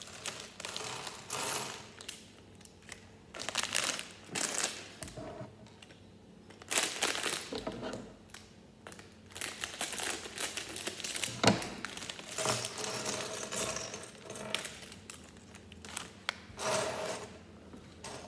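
Plastic Lego parts bags crinkling and rustling in irregular bursts as they are torn open and emptied, with small plastic bricks clicking and clattering onto a wooden table, the sharpest click about halfway through.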